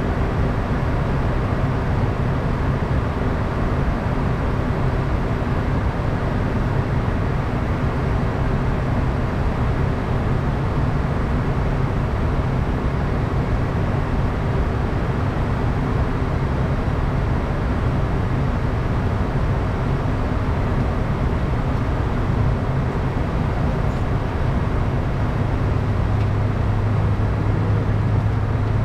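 Steady flight-deck noise of a Bombardier Challenger 350 business jet in flight: even airflow noise over the airframe with the drone of its turbofan engines and a low hum, which grows stronger near the end.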